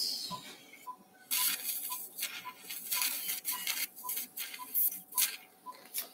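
Surgical anaesthesia monitor beeping steadily at a little under two beeps a second, pacing the dog's heartbeat, with irregular bursts of high hissing from the surgical instruments working in the ventral slot.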